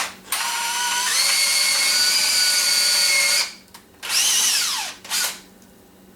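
Electric drill running in bursts: a short blip, a run of about three seconds whose whine steps up in pitch about a second in, then a shorter run that whines down in pitch as it slows, and one last brief blip. It is most likely drilling pilot holes in the workbench lumber with a 3/16 bit.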